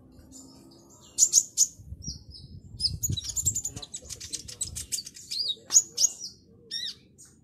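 Caged kolibri ninja, a sunbird, singing in its 'ngobra' manner: bursts of high, sharp chirps and quick trills, with a dense rapid run in the middle.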